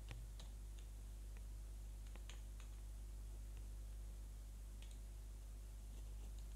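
Quiet room tone: a faint steady low hum with a few scattered light clicks.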